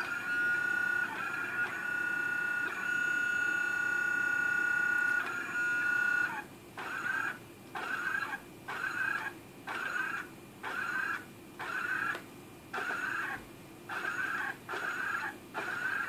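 Roomba robot's motors whining steadily, then from about six seconds in starting and stopping about once a second as the robot moves in jerks.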